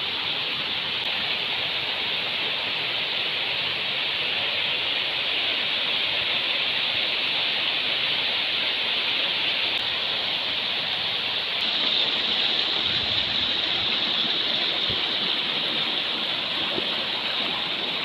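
Steady rush of a rocky mountain river, water running over stones in an even hiss.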